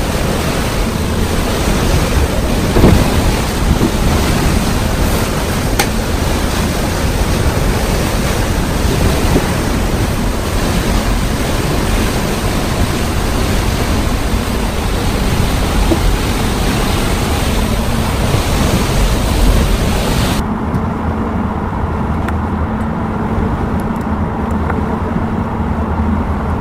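Wind rushing over the microphone on the flybridge of a 74-foot Viking sportfishing boat running at sea, over the rush of its engines and the water. About twenty seconds in it changes abruptly to a duller, steadier drone with a low engine hum.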